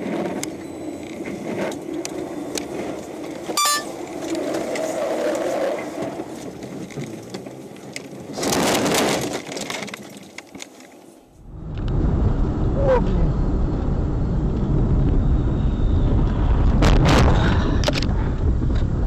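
Car cabin noise from a dashcam, with engine and tyre noise on a snowy road. About halfway through comes a loud rush of scraping and crunching as the car ploughs off the road into snow and brush, branches hitting the windshield. Then a heavier, steady low road rumble from another car, with a couple of sharp knocks near the end.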